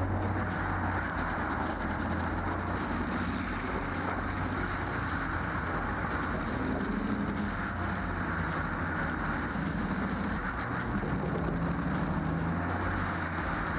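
A heavy machine's engine running steadily, with a low hum and slight shifts in pitch.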